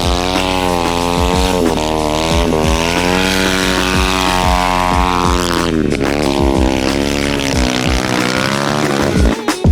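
Homemade four-wheel-drive mini kart's motor running under load, its pitch rising and falling as it speeds up and slows while driving.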